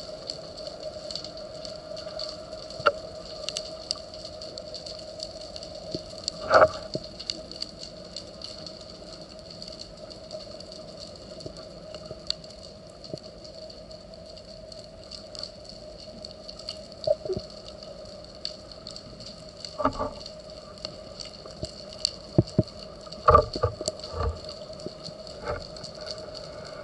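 Underwater ambience heard through a camera housing mounted on a speargun: a steady hum with scattered clicks, and a few louder knocks about six seconds in and again around twenty and twenty-three seconds in.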